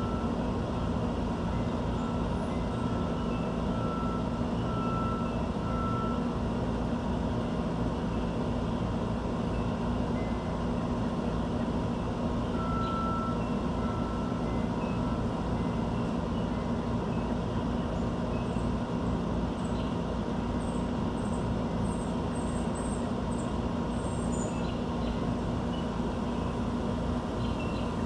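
Steady mechanical hum and rumble of urban background noise. A high beep repeats about once a second over the first six seconds and again briefly in the middle, and faint high bird chirps come near the end.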